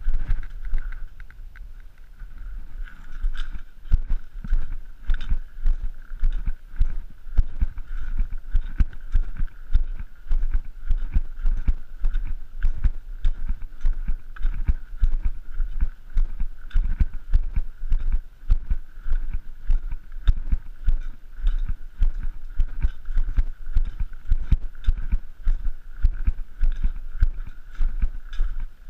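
Footsteps of a hiker walking a gravel canyon trail: an even, continuous run of low thuds, with a faint steady high whine behind them.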